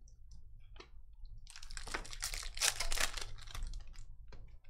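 Hands handling Panini Spectra trading cards and their packaging. A few light clicks are followed, about a second and a half in, by roughly two seconds of dense crinkling and scraping, then more light clicks.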